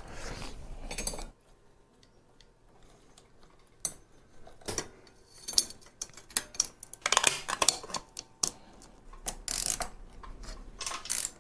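Irregular metallic clinks and rattles of a bicycle chain and chainring being handled as the chainring is fitted to a mid-drive motor, with a brief rustle near the start.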